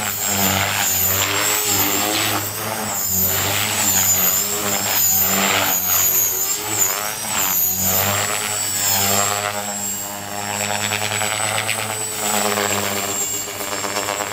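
ALIGN T-REX 450 Pro electric RC helicopter flying: a steady high whine from the brushless motor and the buzz of the spinning rotors, the pitch shifting up and down repeatedly as it manoeuvres and passes.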